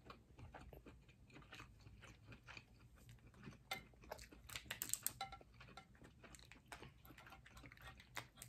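Faint chewing of salmon and its salted skin: soft wet mouth clicks and smacks, with a cluster of sharper clicks around the middle.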